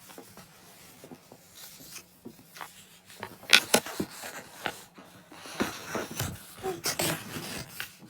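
A busy run of clicks, knocks and rustling from objects being handled. It is faint for the first few seconds, then grows denser and louder from about halfway.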